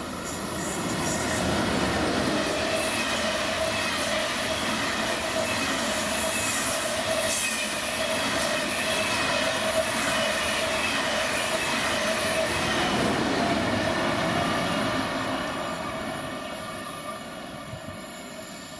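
Deutsche Bahn ICE 1 high-speed train passing close by. The rolling noise of its wheels on the rails swells within the first second, holds with a steady whine over it, and fades over the last few seconds as the train draws away.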